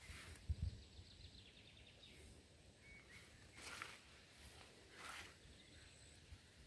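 Faint outdoor ambience with distant birds: a quick run of short high notes about a second in, then a few brief calls. A low rumble about half a second in.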